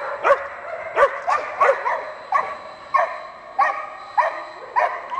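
A dog barking repeatedly in short barks, about two a second.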